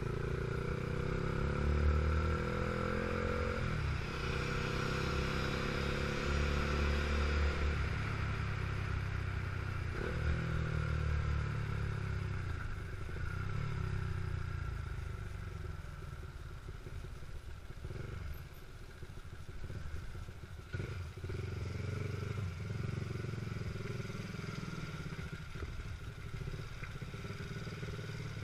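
Motorcycle engine under way, its note rising with speed and dropping back at gear changes about 4 and 10 seconds in, then settling to a quieter, lower running sound as it slows, with a few knocks in the second half.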